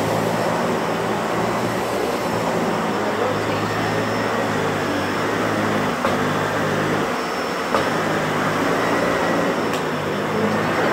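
Dyson Ball Animal 2 upright vacuum cleaner running steadily on carpet as it is pushed back and forth: a low motor hum with a thin high whine over the noise of the suction. Two light knocks come about six and eight seconds in.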